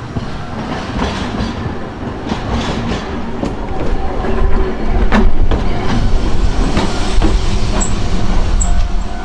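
Hankai Tramway Mo161-class tram, car 162, an old nose-suspended-drive car, rolling in close by. Its low rumble grows louder, with sharp clicks of the wheels over the rail joints, and a few brief high squeaks near the end.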